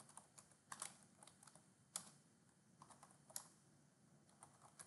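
Faint computer keyboard typing: short irregular runs of keystrokes with brief pauses between them.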